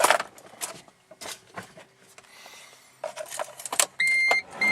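Keys jangling and clicking as the key goes into the ignition of a 1997 Geo Metro. About four seconds in, a high electronic warning chime starts beeping at about two beeps a second.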